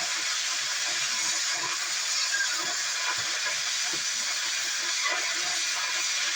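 Oxy-fuel cutting torch hissing steadily as it cuts through steel, with small crackles.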